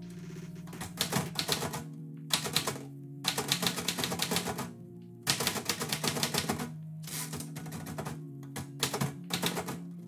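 Manual typewriter being typed on, keys striking in quick runs of about a second each with short pauses between, over background music.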